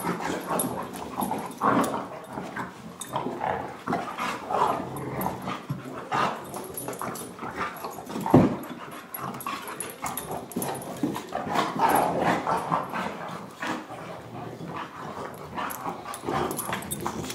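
A boxer and an American bulldog play-wrestling: irregular dog play noises, growls and yips, with scuffling, and one louder, sharper sound about eight seconds in.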